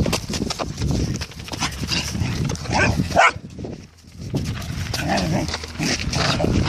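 A dog growling and making short yapping sounds during rough ball play, over quick scuffing footsteps on dirt.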